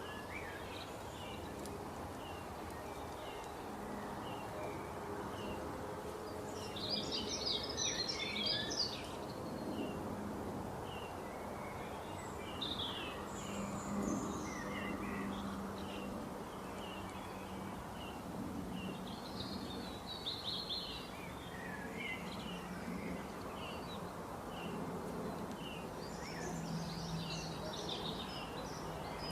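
Songbirds chirping: one bird repeats a short, high chirp about once a second, and several times others break in with brief bursts of busier song, over a steady background hiss and faint low hum.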